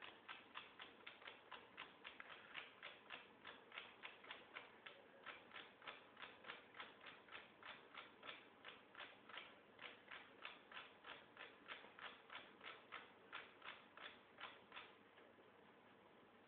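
Faint, rapid, even ticking, about four ticks a second, that stops about a second and a half before the end.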